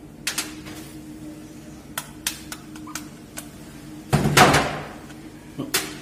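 Knuckles knocking on a thick ostrich eggshell, chipping the shell open during hatching: a scatter of sharp, separate knocks, with a longer, louder cracking crunch about four seconds in and one more knock near the end.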